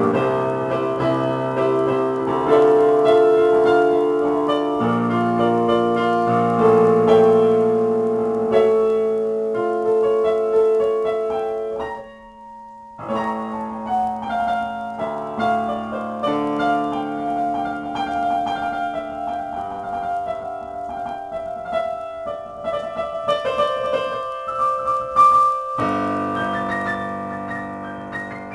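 Yamaha digital piano played as a slow improvisation, with held chords and a melody over them. The playing stops briefly about twelve seconds in, then carries on.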